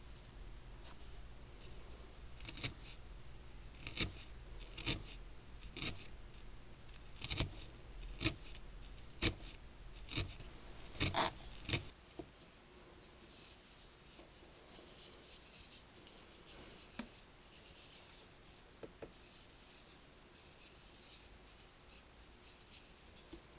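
Felting needle stabbing into a wool ball over a foam pad: crisp, scratchy pokes roughly once a second for the first half. Then only faint rubbing as the wool ball is turned in the hands.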